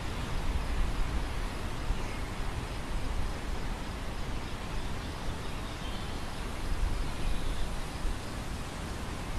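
Wind blowing across a field of grain: a steady rustling hiss, with gusts that swell into a low rumble on the microphone.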